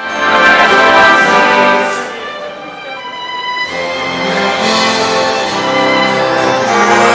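Live symphony orchestra playing, led by the strings. It starts loud, eases off about two seconds in, then swells again.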